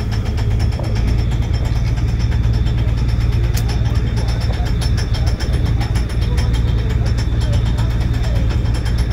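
A mechanised fishing boat's inboard engine running steadily: a loud, low, even hum with a fast regular beat. Faint voices can be heard under it.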